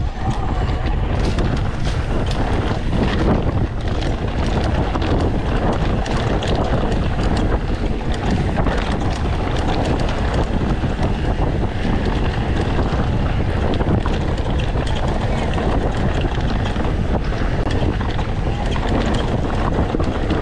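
Wind rushing over the microphone as a YT Decoy mountain bike descends a dirt trail at speed, with tyre noise and frequent sharp clatters and knocks as the bike rattles over rocks and roots.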